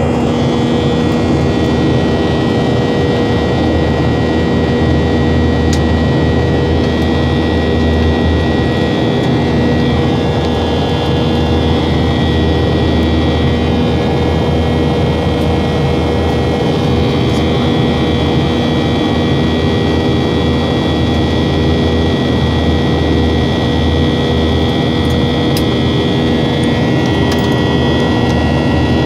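Jet airliner's engines running steadily at high thrust during takeoff, heard inside the passenger cabin: a loud, even rush of noise with several steady whining tones over it.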